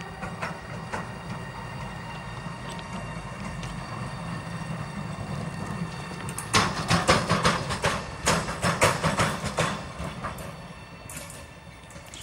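Siemens Smartron electric locomotive hauling a container freight train past, a steady low rumble. From about six and a half to nearly ten seconds in comes a quick run of loud, sharp clacks as the wheels pass over the track.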